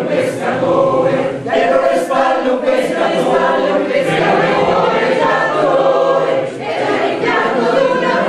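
Mixed choir of women's and men's voices singing together in sustained chords, the harmony shifting every second or so.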